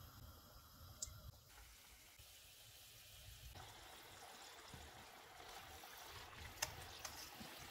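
Faint sizzling and bubbling of samosas deep-frying in oil on a low flame, with a few light clicks of a slotted spoon near the end.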